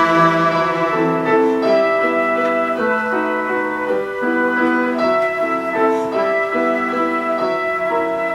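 Ensemble of cellos with a children's orchestra playing a melody in held, overlapping notes, with piano and woodwind also heard.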